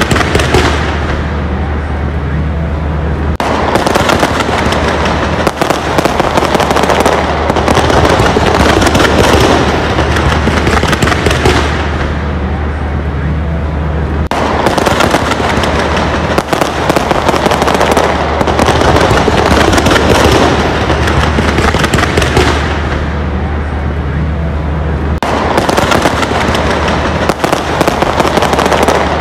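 Fireworks display in full swing: dense, continuous bangs and crackling from shells bursting one after another, with no let-up.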